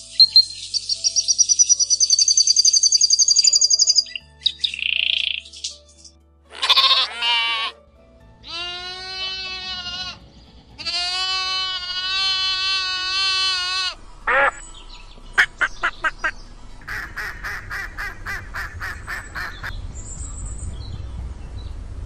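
A small songbird's high, fast trilling song for the first few seconds. Then two long sheep bleats around the middle, followed by a run of sharp clicks.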